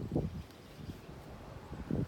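Wind buffeting the microphone in two short gusts, one just after the start and one near the end, over a low steady rumble of wind.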